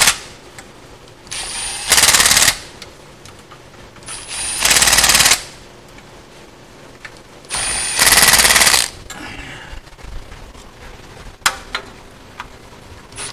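Impact wrench running in the bolts of a 4L60E transmission pan, in three bursts about a second long. Each burst spins briefly, then hammers as the bolt snugs down against the rubber pan gasket. A few sharp clicks come near the end.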